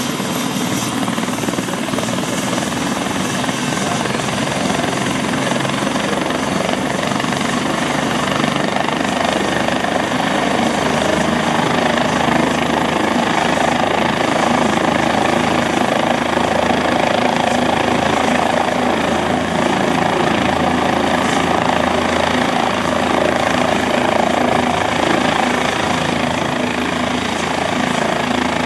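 Single-engine turbine helicopter running on the ground with its rotor turning: a steady engine and rotor noise with a thin high whine over it, growing a little louder over the first several seconds.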